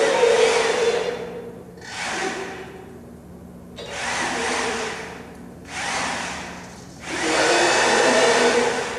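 Motorized sound-installation machine worked in bursts: five rushing, whirring blasts, each a second or two long with short gaps between, over a steady low hum.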